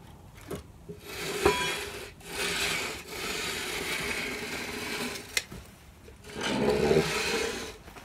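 A freshly sawn board being dragged off the sawmill carriage, wood scraping along wood in three long drags with a sharp knock in the middle.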